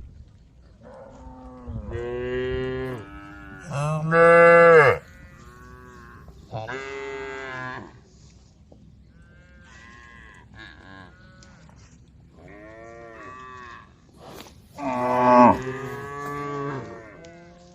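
Several cows mooing one after another, some calls close and loud and others fainter. The two loudest calls come about four seconds and fifteen seconds in.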